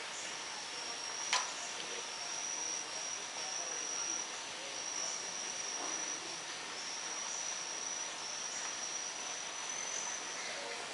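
Steady high-pitched insect trill over background hiss, with one sharp click a little over a second in.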